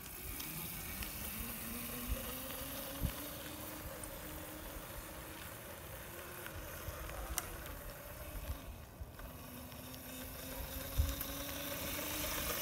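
Razor MX250 kids' electric dirt bike's motor whining as it pulls away under throttle. Its pitch climbs over the first couple of seconds, eases around the middle, and rises again near the end as it speeds up.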